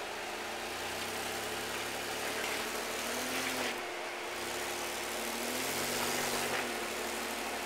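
Off-road SUV's engine running at low revs as it crawls over boulders, the revs rising and falling twice as the throttle is worked.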